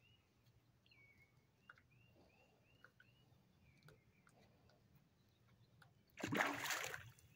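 Faint outdoor ambience with a run of small, evenly repeated chirping notes, like a bird calling. About six seconds in, a loud rush of noise lasts under a second.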